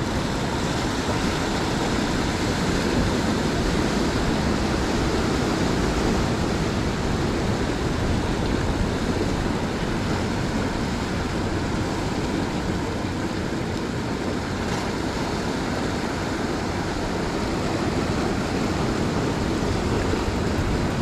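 Sea surf washing over the rocks as a steady, even rush.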